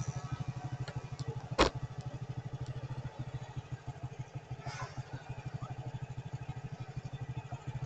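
Small engine idling with a steady, rapid low putter, with a sharp click about one and a half seconds in.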